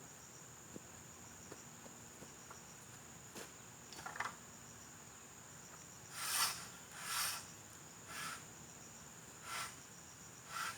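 A steady high-pitched insect drone. From about halfway through, the strange sound enters: a series of short hissing rasps, about one every second or so, louder than the drone.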